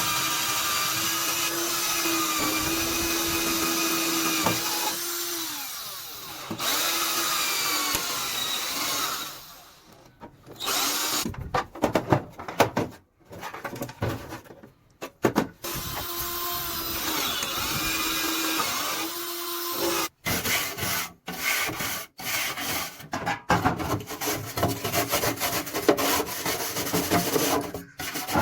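Electric power drill running in several bursts of a few seconds each, its pitch dipping as each burst winds down. Irregular scraping and rubbing of tool work fill the gaps and the later part.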